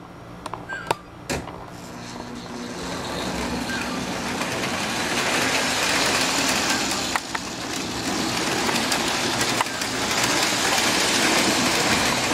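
Model electric trains running on the layout's track: an even rolling rumble that builds over the first few seconds and then holds steady. A few sharp clicks come early on and once or twice later.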